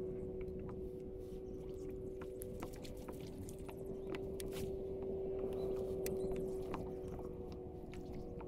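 Electric trolling motor on a fishing kayak humming steadily at one pitch, with light scattered clicks over it.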